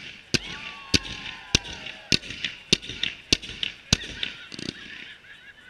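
Fireworks going off: a string of seven sharp, evenly spaced bangs, about one every 0.6 seconds, with crackling between them and a faint whistle falling in pitch over the first two seconds. The bangs stop about four seconds in and the crackle tails off.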